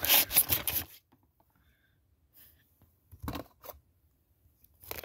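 Packaging of a Pokemon card box being torn and crinkled for about the first second, then quiet with brief rustles of handling about three seconds in and near the end.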